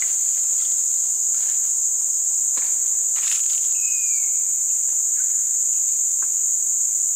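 A steady, high-pitched drone of insects from riverside forest, unbroken throughout. A short falling whistle comes in about four seconds in.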